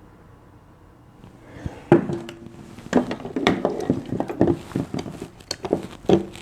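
Hard plastic clacks and knocks of a model skull's lower jaw being worked open and shut by hand, its teeth knocking together over and over, starting about two seconds in.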